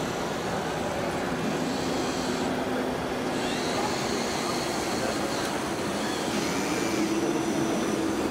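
Radio-controlled Caterpillar crawler bulldozer model driving on sand: a steady electric motor and gear whine, with thin whines that glide up and down in pitch as it changes speed, over a constant hall din.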